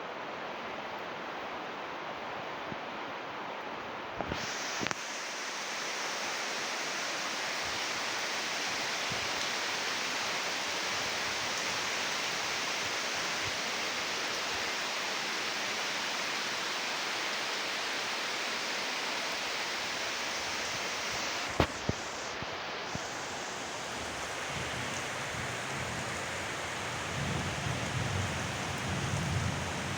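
Steady hiss of heavy monsoon rain falling, with a few sharp clicks about four seconds in and again about two-thirds of the way through. A low rumble swells near the end.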